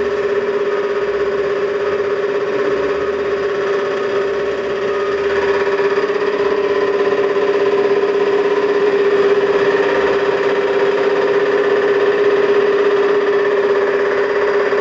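A motor or engine running steadily at one constant, fairly high pitch, getting a little louder about five seconds in.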